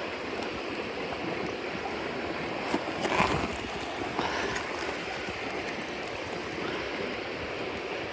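Mountain stream babbling steadily, with a few faint crackles from a wood campfire. A brief louder rush swells up about three seconds in.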